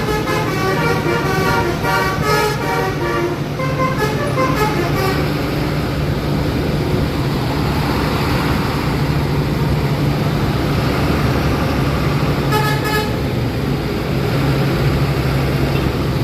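Tour bus 'telolet' musical air horn playing a quick run of short notes that step up and down in pitch over the first few seconds. It falls back to the bus's engine running with traffic noise. A brief horn blast comes again about three-quarters of the way through.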